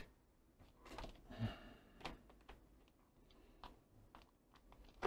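A few faint clicks and light rustling as needle-nose pliers and the opened plastic soldering gun housing are handled.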